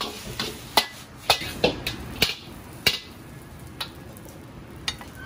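Metal ladle clanking against a black steel wok as fried rice is stirred and scooped: a run of sharp, irregular clanks that thin out after about three seconds.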